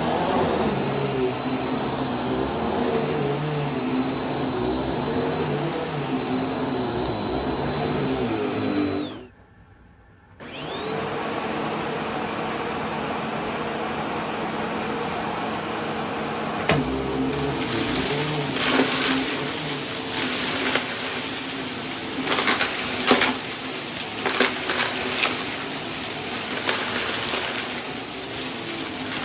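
Vacuum cleaner motor running with a steady high whine. About nine seconds in it is switched off and winds down, then starts again a second later and runs back up. From about seventeen seconds, irregular crackling crunches of debris being sucked up.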